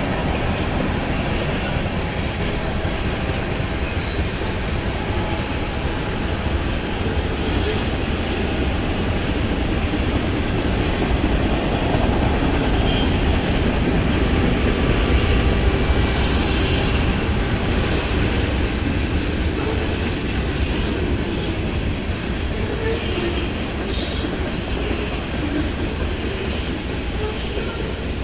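Freight train cars, mostly covered hoppers, rolling past at speed. The steel wheels on the rail make a steady, loud rumble, broken several times by short, high wheel squeals.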